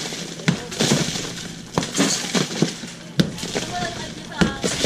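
Sledgehammer blows smashing a concrete hollow-block wall: sharp, irregular strikes, eight or so in a few seconds, with broken block and rubble cracking and clattering.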